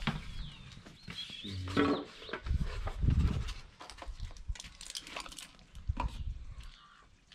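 A short animal call, with scattered knocks, clicks and rustling around it.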